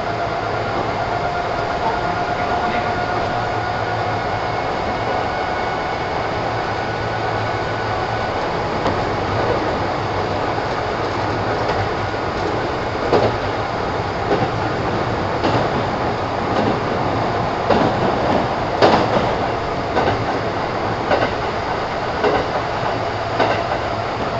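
Kintetsu 1000 series electric train heard from inside the car, running at speed with a steady rumble of wheels on rail. A steady whine fades away over the first several seconds. After that, rail-joint clicks come about once a second and grow louder in the second half.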